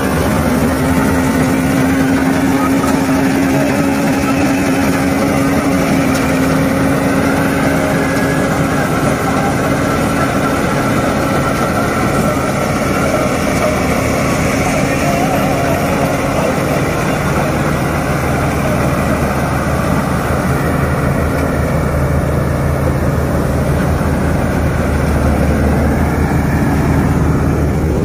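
Self-propelled combine harvester running steadily while cutting standing wheat: a continuous mechanical drone from its engine and machinery, whose tone drops lower about halfway through.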